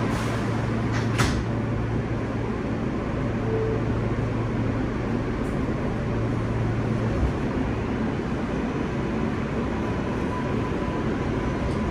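New York City subway L train car running on the tracks, heard from inside the car: a steady rumble and rail noise, with a sharp clack about a second in and a faint steady whine coming in near the end.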